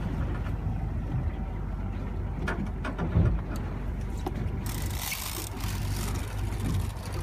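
Boat engine running steadily, with a thump about three seconds in and a brief rushing hiss about five seconds in.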